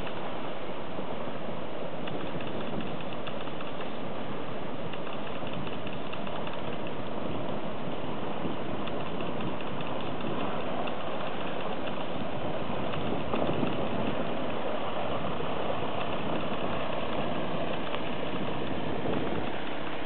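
Mitsubishi Pajero 4x4's engine running steadily as it wades through a shallow river, mixed with a constant wash of water noise.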